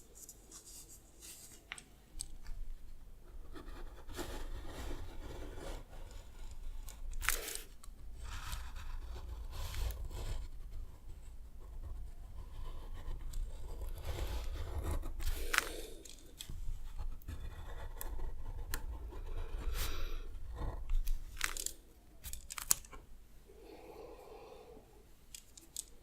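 Drawing tools scratching and rubbing on paper in uneven strokes, with a few sharp ticks, and heavy breathing.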